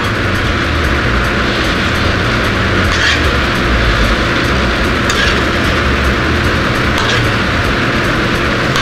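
Steady loud roar of a commercial kitchen at the gas range. A few faint clinks, about two seconds apart, come from a serving utensil against the plate as shrimp are spooned out.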